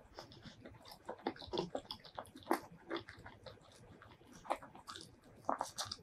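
Close-miked eating sounds of rice and egg curry eaten by hand: wet chewing, mouth smacks and sticky rice squished between fingers, a run of short clicks and smacks, the loudest about midway and near the end.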